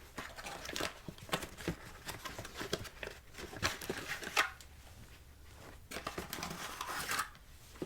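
An accessory pouch being opened and its contents handled: irregular rustling and crinkling with many small clicks and scrapes. A brief lull comes about five seconds in before the handling resumes.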